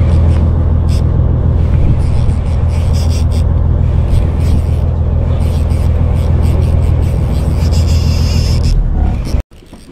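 Boat engine running with a steady low drone, which cuts off abruptly near the end.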